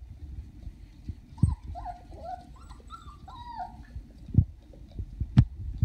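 Young Australian Shepherd puppies play-fighting: a quick string of short, high yips and whines starting about a second and a half in and lasting about two seconds, with a few sharp thumps.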